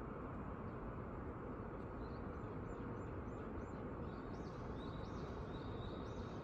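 Steady low hum of distant city traffic, with faint birds chirping over it from about two seconds in: a run of short high chirps, then busier chirping and a brief trill near the end.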